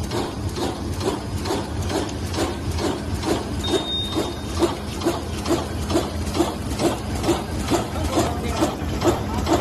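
CW-800SBD courier-bag making machine running, with a regular mechanical stroke about two and a half times a second over a steady hum.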